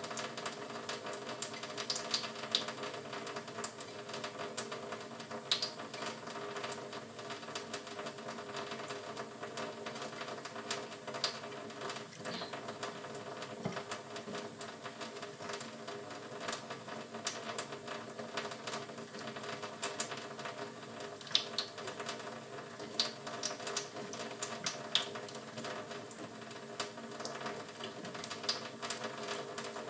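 Canary bathing in a sink, fluttering and splashing in shallow water: a dense, rapid patter of small splashes and ticks, over a steady hum.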